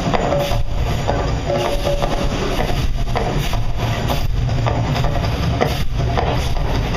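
Steady, loud low rumble of the Mirage volcano's eruption show.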